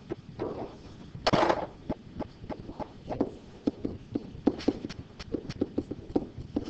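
Irregular taps and clicks of a pen tip on a hard writing surface as an equation is written, with one louder, noisier burst about a second and a half in.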